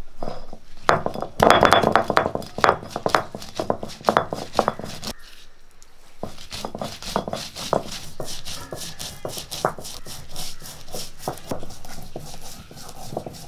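Whole black peppercorns and coriander seeds being crushed under a stone roller on a flat grinding stone: rapid crunching cracks, a brief lull about five seconds in, then steadier repeated grinding strokes.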